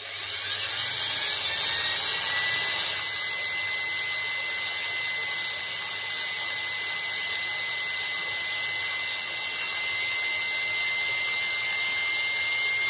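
Electric drill spinning a cordless screwdriver motor's armature while a fine needle file is held lightly against its copper commutator to true the uneven surface. A steady high whine that rises in pitch over the first couple of seconds as the drill spins up, over a scraping hiss.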